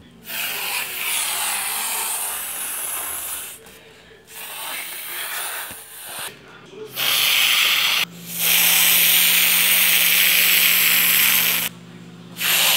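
Toy airliner's jet-engine sound effect: a loud hissing whoosh that plays in about five bursts of one to three seconds, each cutting off abruptly, with a low steady hum under the later, longer bursts.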